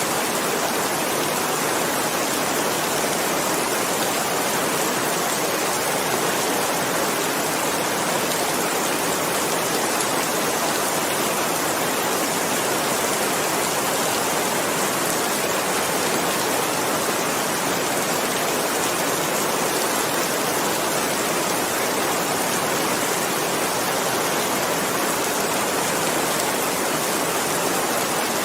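Steady rain: a dense, even hiss of countless drops that holds the same level throughout, with no single drop or change standing out.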